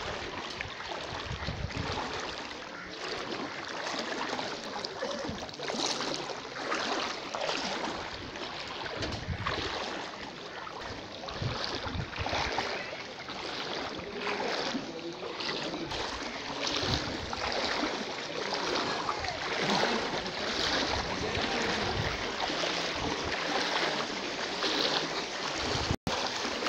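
Muddy floodwater sloshing and splashing as people wade through it knee-deep, with irregular surges about once a stride.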